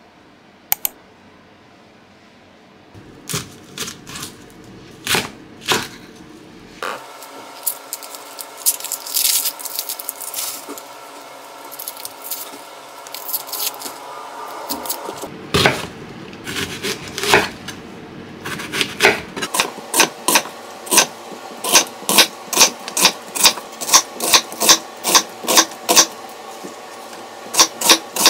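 Kitchen knife chopping an onion on a wooden cutting board, a steady run of strikes about two a second from about two-thirds of the way in. Before that, scattered taps and crackling as the onion is handled and its dry skin peeled, over a faint steady hum.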